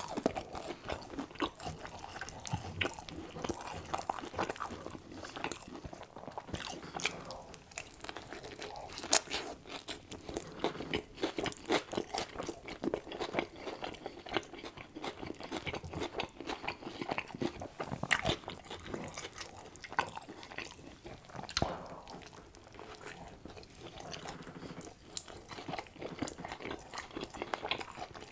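Close-miked chewing of a mouthful of cheeseburger with lettuce and onion: wet mouth sounds and a steady run of small crunches and clicks.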